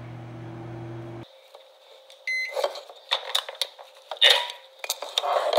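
Microwave oven running with a steady hum that cuts off about a second in. A single short beep follows about a second later, then a run of sharp clicks and clatter, loudest about four seconds in.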